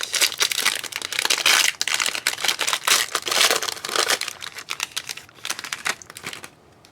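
Crinkling and tearing of trading-card packaging (wrapper or shrink-wrap) being handled and opened, a dense crackle that dies down about six and a half seconds in.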